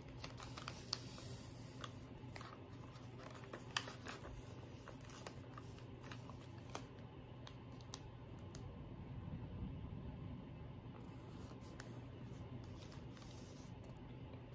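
Faint handling sounds of washi tape being unrolled from its roll and pressed onto a paper planner page: soft rustles with a few scattered light ticks.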